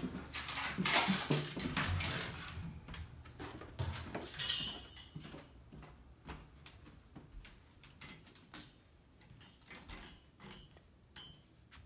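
A dog dragging a long, twiggy stick over a hardwood floor: scraping and clattering of the twigs against the wood, loudest in the first couple of seconds, then scattered taps and knocks that grow fainter.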